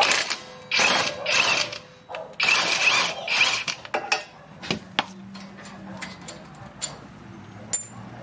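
Ratchet wrench clicking in three quick runs, then several separate metallic clicks and knocks from hand tools.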